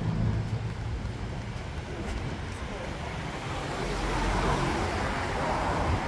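Street ambience: a motor vehicle runs by with a low hum that fades out, then the chatter of people talking nearby rises in the second half.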